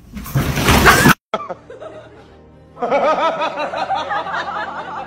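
A loud, harsh noisy burst for about a second, then a brief dead gap. From about three seconds in, a snickering laugh sound effect repeats over music.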